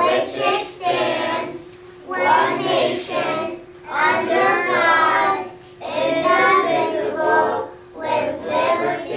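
A group of young children singing together in unison, in short phrases with brief pauses for breath between them.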